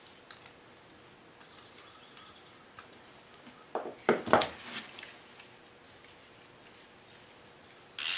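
Hand tools being handled against metal during bolt removal: a few light clicks, a cluster of louder clanks about four seconds in, and a short sharp rattle at the very end.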